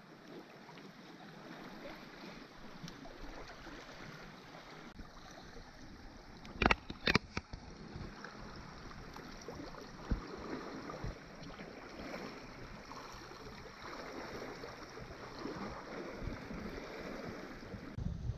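Small waves lapping and washing against a rocky shoreline, a low steady wash. A few sharp knocks stand out about seven seconds in, with one more a few seconds later.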